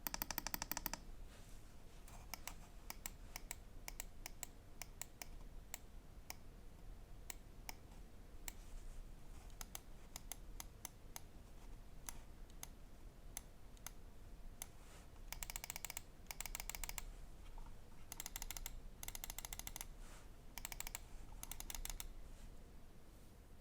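Microswitch buttons of an XTRFY M8 Wireless mouse clicking. There is a quick burst of clicks at first, then single clicks spaced out, then several fast runs of rapid clicks near the end.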